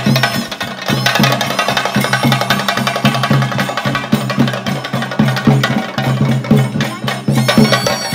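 Traditional Kerala percussion accompanying a Theyyam ritual: fast, continuous drumming, with ringing metallic tones above it that fit hand cymbals.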